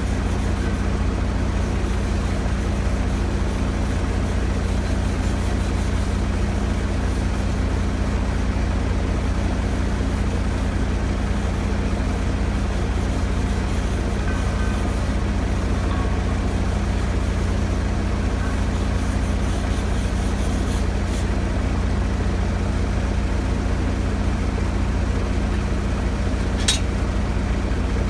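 An engine running steadily at an even idle, with one sharp click near the end.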